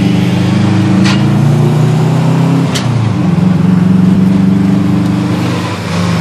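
Turbocharged car engine under hard acceleration, heard from inside the cabin. The revs climb, drop sharply with a short snap at a gear change about two and a half seconds in, then climb again.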